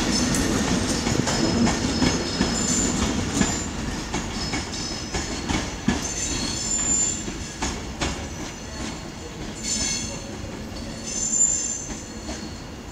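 Virgin Trains Class 390 Pendolino electric train running out over the station pointwork and fading as it draws away. Its wheels give short high squeals several times and clack irregularly over the rail joints and crossings.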